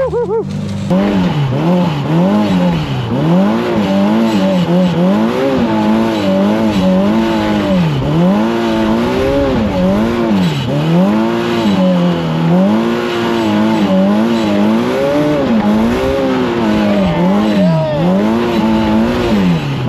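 Turbocharged Polaris RZR Pro R's four-cylinder engine revving up and down over and over, about once a second, as the side-by-side is driven through deep snow.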